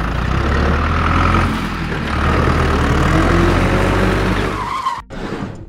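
Tractor engine sound running with a steady low rumble, cutting off abruptly about five seconds in.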